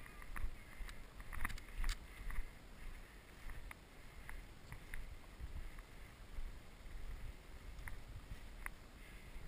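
Footsteps and tall dry grass brushing against legs and gear as a player pushes through a field, with irregular surges of rustling and a few scattered sharp clicks.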